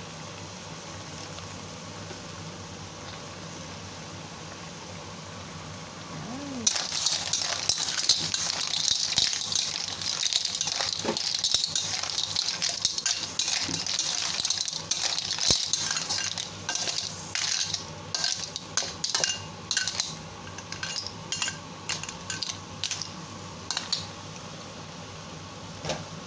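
Clams in their shells being stirred in a steel wok: after several seconds of steady low background noise, a dense sizzle with shells clinking and scraping against the pan starts, then thins into separate clinks and scrapes near the end.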